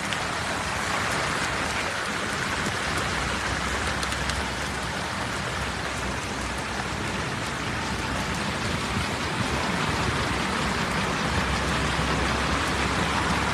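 Heavy rain falling steadily on a flooded street, an even, unbroken hiss.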